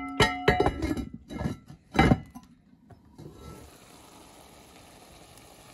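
Heavy enamelled cast-iron casserole lid set down on its pot with a ringing clank, followed by several more metallic knocks over the next two seconds as it is settled in place. A faint steady hiss of the curry simmering follows.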